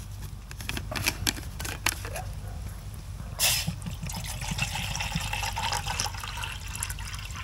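A few light clicks and knocks of cookware being handled, then from about three and a half seconds in, water being poured with a steady trickle.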